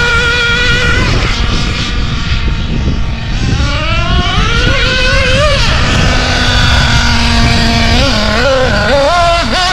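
Novarossi nitro engine of a Kyosho Inferno MP10 RC buggy running at high revs, its whine held high, then falling and climbing again as the throttle is worked. It drops to a low steady note about six seconds in, then gives several quick rev blips near the end.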